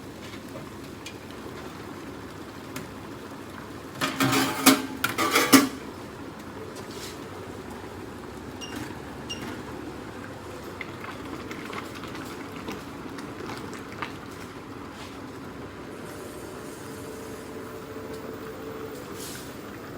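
Automatic noodle-boiling machine running with water bubbling steadily. About four seconds in comes a loud metallic clatter lasting about a second and a half, like pots or a metal basket being handled.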